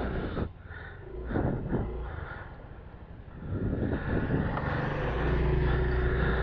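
Yamaha Mio scooter engine running, picked up by a microphone inside the rider's helmet. The hum grows louder about three and a half seconds in and then holds steady.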